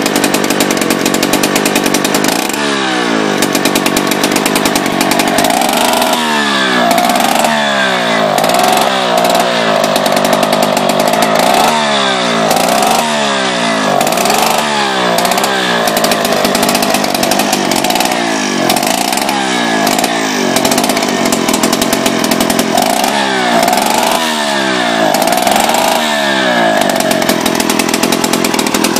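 Soviet Druzhba two-stroke chainsaw running, its throttle blipped again and again so the engine speed rises and falls. The owner says it runs a bit rich.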